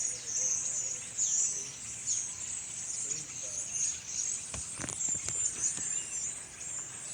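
A large flock of birds calling all at once: a dense, continuous, high-pitched chatter of many overlapping calls, with a few brief knocks about five seconds in.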